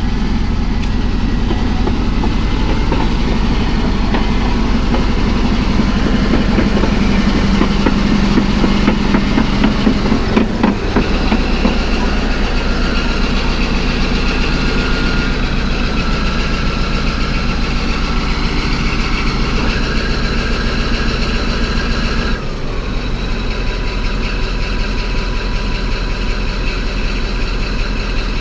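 CAT D11 bulldozer's diesel engine running as the dozer moves back and forth, with a steady clatter from its steel tracks. About 22 seconds in the sound drops suddenly to a steadier, quieter engine note.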